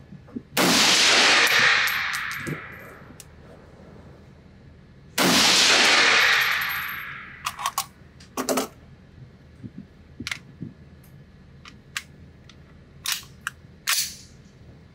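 Two rifle shots from a Nemo Arms Battle Light Rifle in 6mm ARC, about four and a half seconds apart, each trailing off in a long echo down an indoor range. They are followed by several shorter, sharp clicks and cracks.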